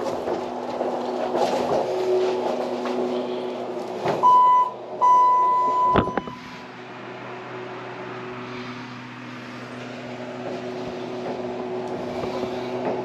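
A steady machine hum with a fan-like rush, broken about four seconds in by two loud electronic beeps, a short one and then a longer one, that end in a sharp click; after the click the rush drops away and only a quieter hum goes on.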